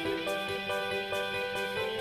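Background music: a melody of held notes changing pitch over a light, steady beat of about two clicks a second.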